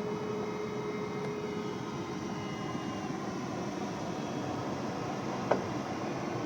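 Steady cockpit noise of a small aircraft in flight: an even rush of air with a faint steady hum under it, and one short click about five and a half seconds in.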